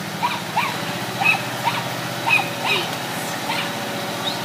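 Small farm tractor's engine running steadily as a low hum, while short high squeals or yelps repeat irregularly, about two or three a second.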